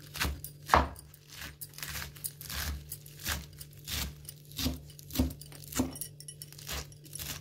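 Steel cleaver chopping fresh fenugreek leaves finely on a wooden cutting board: a run of uneven knocks of the blade on the wood, about two a second, the loudest a little under a second in.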